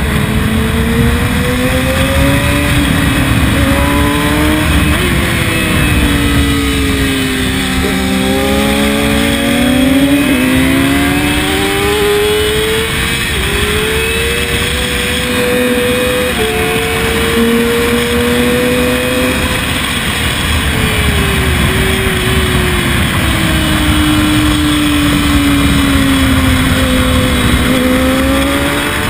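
Sport motorcycle engine at speed on track, its pitch climbing and falling with the throttle and stepping at gear changes, over a steady rush of wind on the onboard microphone.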